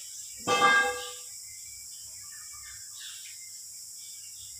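A metal part clinks once, about half a second in, with a short ringing tone that dies away within half a second: a steel bushing being handled against the backhoe's steering knuckle.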